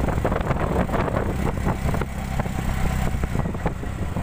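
Ride noise from inside an open-sided auto-rickshaw moving at speed: the engine and road rumble, wind buffeting the microphone, and many small rattles of the body.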